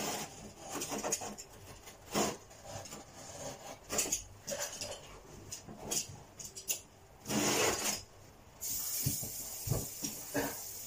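Carpet being worked and trimmed by hand: irregular scraping and rubbing of carpet pile and backing, with a longer, louder rasping stroke about seven seconds in. A steady hiss comes in near the end.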